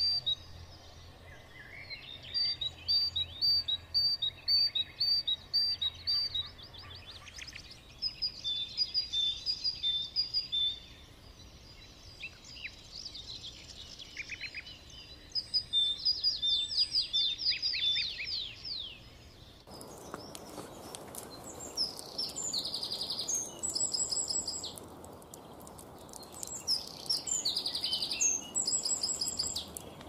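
Small songbirds chirping and singing in quick repeated notes and trills. About two-thirds of the way in, the recording changes and a steady hiss sits beneath the song.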